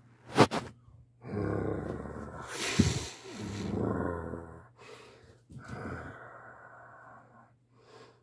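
A person growling and breathing hard in two long stretches, a vocal power-up noise for a puppet, with a sharp knock just before and a brief hiss near the middle.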